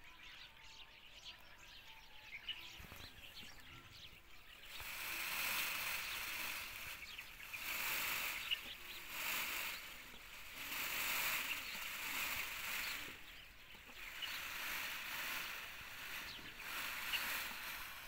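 A few faint bird chirps, then from about five seconds in a loud rustling hiss that swells and fades in waves every second or two.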